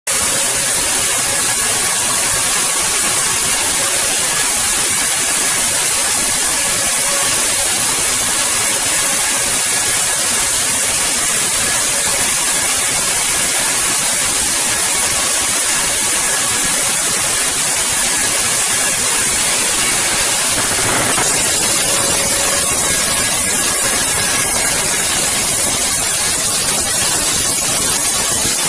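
Sawmill wood-cutting machinery running: a steady, loud hiss with a faint whine in it, shifting slightly about 21 seconds in.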